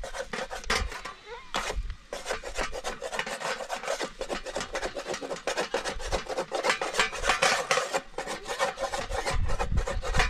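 Rapid, repeated rubbing and scraping strokes, several a second, kept up without a break.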